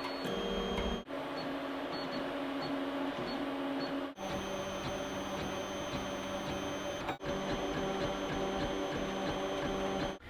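Solidoodle 3D printer running a print job: its stepper motors whir in several steady tones as the extruder head and bed move. The pitch set changes from one stretch to the next, and there are three brief dropouts.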